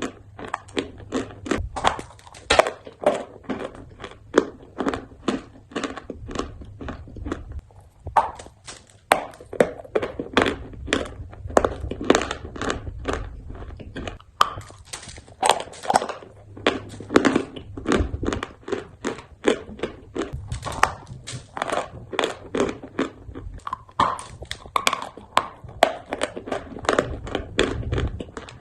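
Close-up chewing of crunchy food: a steady run of crisp crunches, about three a second.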